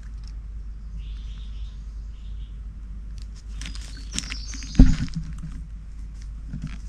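A lemur foraging in dry leaf litter right beside the microphone: leaves rustle and crackle, busiest in the second half, with one loud knock close to the microphone about five seconds in. Birds chirp faintly in the background early on.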